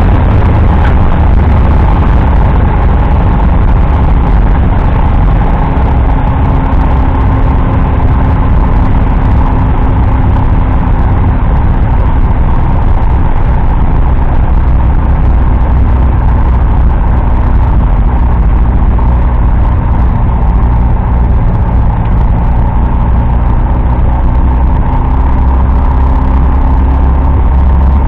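Rotary engine and propeller of a Dyke Delta airplane, heard loud inside the cockpit as a steady drone. The engine note drops slightly right at the start, then holds steady.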